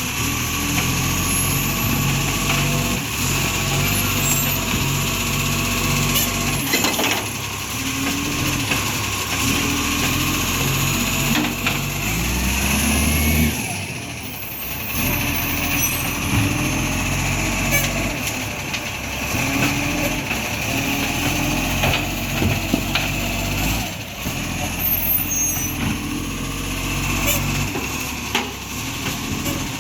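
Iveco ACCO garbage truck's diesel engine running with a leaking exhaust, its revs stepping up and down and rising once about twelve seconds in. A few sharp knocks are heard along with it.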